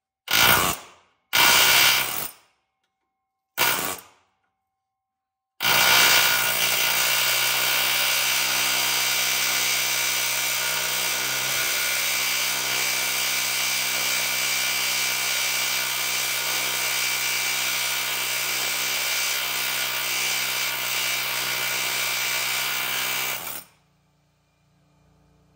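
A power tool worked in three short trigger bursts, then run continuously at a steady pitch for about eighteen seconds before it stops abruptly.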